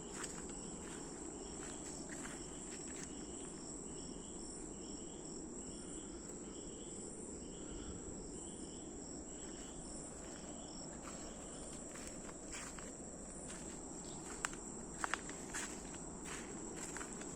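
Tropical forest insects drone steadily at a high pitch, and a short chirp repeats about every two-thirds of a second for several seconds in the middle. Footsteps crunch along a leaf-littered trail throughout, with a few sharper snaps a little after the middle.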